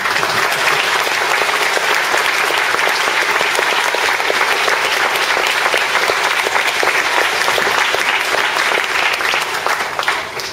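Audience applauding steadily in a hall, the clapping dying away near the end.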